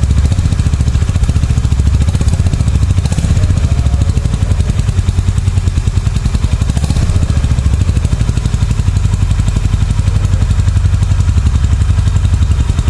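350 cc single-cylinder motorcycle engine idling steadily through its stock exhaust, with an even, rapid thump.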